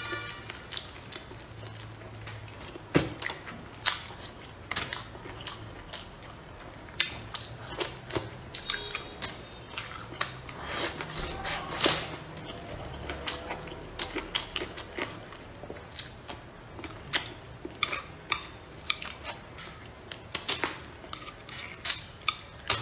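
Chopsticks clicking and scraping on a plate of braised fish, irregular sharp clicks several times a second, with close-up chewing and mouth sounds of a person eating.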